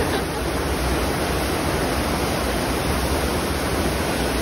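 Steady, unbroken rush of water streaming up the incline of a FlowRider sheet-wave surf machine.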